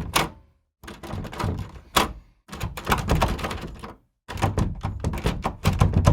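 Edited sound-effect clips of rapid knocks and thuds, in separate bursts of about a second and a half, with dead silence between them.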